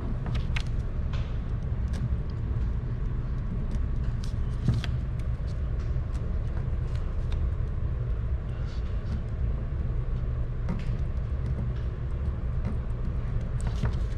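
A steady low rumble with scattered light clicks and knocks, the sharpest about five seconds in and twice near the end.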